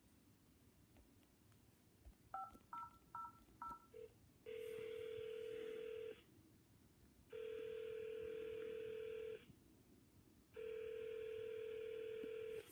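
An iPad calling app dialing the last digits of a phone number, four short touch-tone beeps about a second apart, then the ringback tone of the outgoing call: three steady rings of about two seconds each with short gaps, the call not yet answered.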